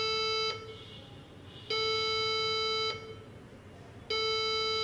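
Computer motherboard speaker sounding a POST error beep code at power-on: long steady beeps of about a second each, repeating every two and a half seconds or so. The beeps are the sign that the RAM is not being detected.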